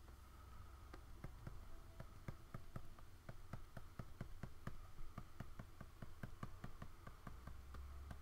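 Quick series of light taps and clicks, about three or four a second, from hand work at a computer during digital coloring, starting about a second in. A faint steady hum runs under them.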